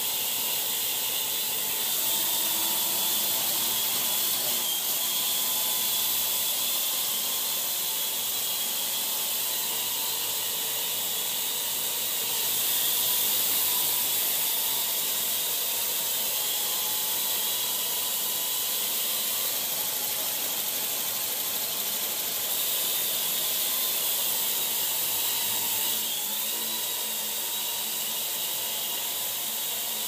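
Parrot AR.Drone 1.0 quadcopter's four electric motors and propellers whining steadily in flight, the pitch wavering slightly as it manoeuvres.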